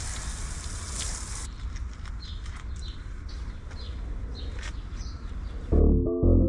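Steady hiss that cuts off abruptly about a second and a half in, then quiet outdoor ambience with a few faint short chirps. Background music starts near the end.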